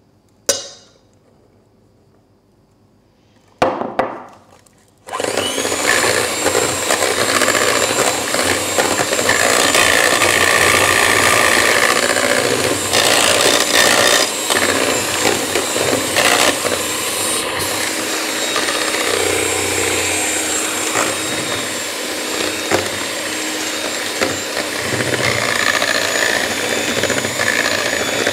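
Kenwood electric hand mixer switched on about five seconds in and running steadily, its beaters whisking sponge cake batter in a metal bowl as self-raising flour is added. Before it starts there are two short knocks.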